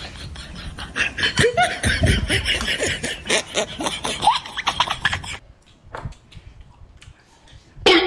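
Laughing and snickering mixed with mouth noises of eating, dying down about five seconds in to a quiet stretch with faint clicks.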